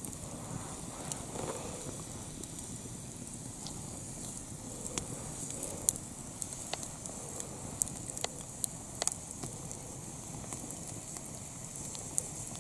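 Wood campfire burning, crackling with scattered sharp pops over a steady low hiss of flame.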